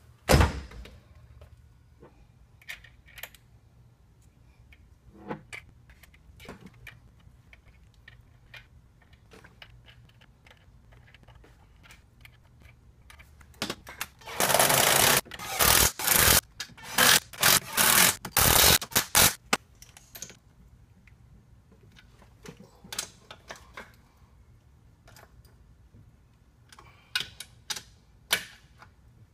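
A cordless drill running in a series of short bursts about halfway through, driving fasteners on a MerCruiser sterndrive as it is bolted back onto the transom. Scattered clicks and knocks of tools being handled come before and after, with a loud clunk right at the start.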